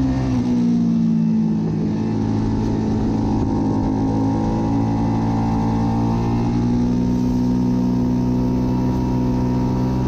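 Suzuki SV650's 645 cc V-twin engine running hard at high, fairly steady revs, dipping slightly about a second in and climbing slowly over the second half.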